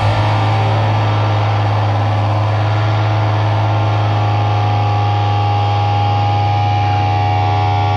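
Noise-rock band's amplified guitars and bass holding one loud, unbroken drone: a deep low note with several steady higher tones over it, and no drums.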